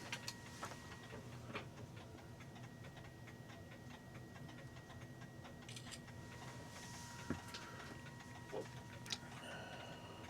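Mechanical clock ticking steadily and faintly, with a few sharper light clicks of small metal parts being handled.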